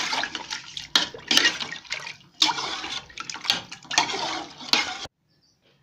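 A spatula stirring chunks of raw beef in spiced water in a pressure cooker, the liquid sloshing with each stroke, to mix the ingredients for beef yakhni stock. The stirring comes in irregular strokes and stops abruptly about five seconds in.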